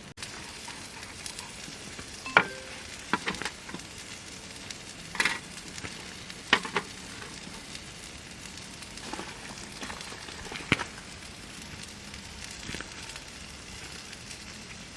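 Food sizzling steadily in a pan over a camp stove, with a few sharp knocks at irregular intervals.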